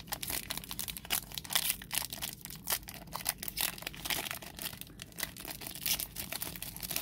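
Foil trading-card pack being torn open by hand, its wrapper crinkling and crackling irregularly throughout.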